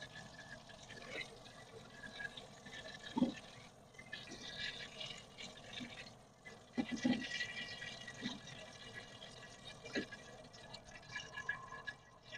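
Hot oil in a wok sizzling and crackling quietly around tapioca-coated fried oysters and basil leaves as they are scooped out with a mesh strainer and ladle, with a few light knocks of the utensils.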